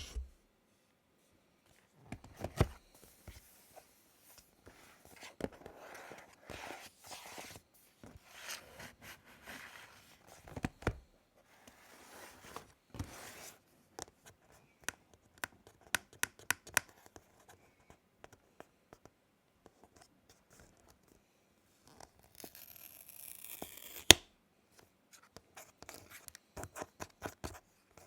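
Packaging of an Apple Magic Keyboard being handled and opened: paper and cardboard rustling, tearing and scraping in short spells, with scattered sharp clicks and taps. The loudest click comes just after a few seconds of denser rustling near the end.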